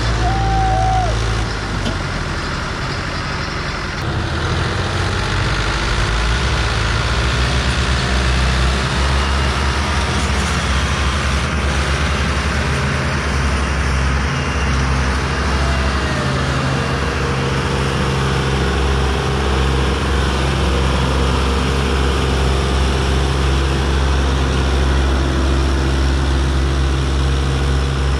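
Fiat tractor's diesel engine working hard under heavy load, held at high speed as it pulls a stuck, loaded sugarcane trolley. It dips a little about two seconds in, then runs loud and steady again.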